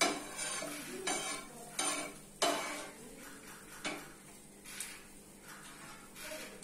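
Metal spatula scraping and clinking against a frying pan as a pancake is worked loose and lifted: several sharp strokes in the first four seconds, then quieter.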